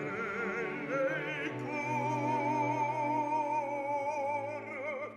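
Operatic bass voice singing: a few moving notes, then one long held note with vibrato that fades out near the end.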